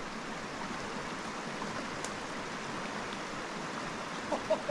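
Steady rush of a small mountain creek's running water, with a few brief pitched sounds near the end.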